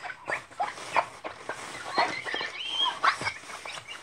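A Kimwipes tissue rubbed back and forth over a sheet of picture-frame glass, squeaking in quick irregular chirps, some sliding in pitch, as the glass is polished.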